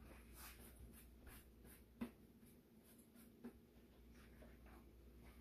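Near silence: faint rustling and shuffling, with two soft taps, one about two seconds in and another about a second and a half later.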